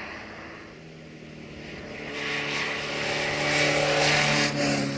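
A motor vehicle passing by on the road. Its engine note and tyre noise swell to a peak about four seconds in, then the pitch drops as it goes past.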